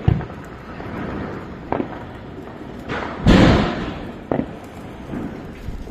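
Firecrackers going off: a sharp thud at the start, a smaller pop near two seconds in, and a louder bang a little past the middle that dies away over about half a second. Beneath them is the steady hiss of a small ground firework spraying sparks.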